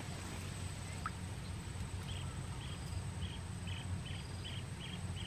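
Faint short high-pitched animal calls, repeated about twice a second from around two seconds in, over a steady low rumble.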